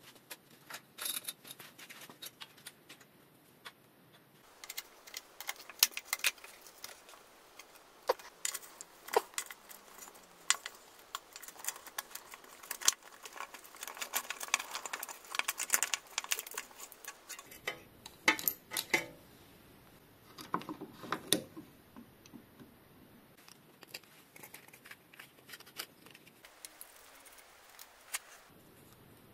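Small metal clicks, ticks and clinks of hand work on a bicycle: a hex key working the front derailleur's bolt while cables and parts are handled. The clicks come irregularly and are busiest from about five to seventeen seconds in.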